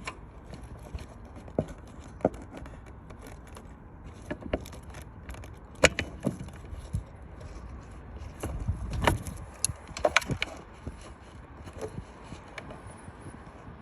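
Irregular clicks and knocks of pliers and hard plastic as a tight taillight bulb socket is twisted and worked out of the housing.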